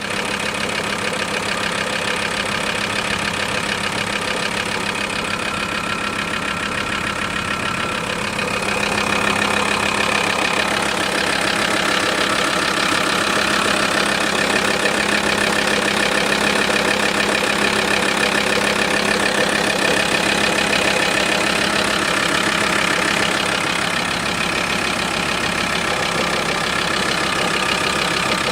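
VW T4's 2.5 TDI (ACV) five-cylinder diesel engine idling, with an extra mechanical noise from the engine. It grows a little louder about eight seconds in.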